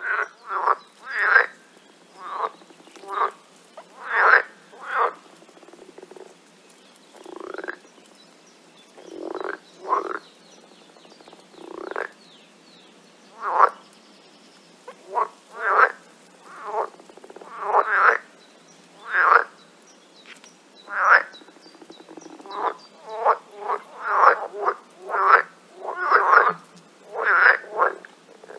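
Frogs croaking: short calls repeating irregularly at about one to two a second. The calls thin out in the middle, where a few of them rise in pitch.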